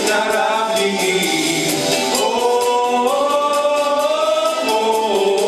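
Two male voices singing a duet in long held notes over a backing track with a steady beat; the sung line steps up in pitch partway through and drops back near the end.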